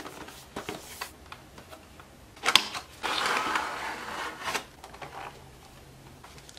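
Clear plastic packaging being handled: a few light clicks, a sharp clack about two and a half seconds in, then a second or so of crinkling rustle.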